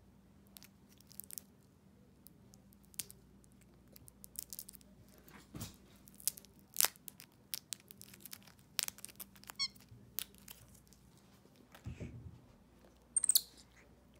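A white-faced capuchin monkey handling and licking a hard-candy ball lollipop that still has part of its plastic wrapper on. The sound is irregular small crinkles, crackles and mouth clicks, with one louder sharp crackle near the end.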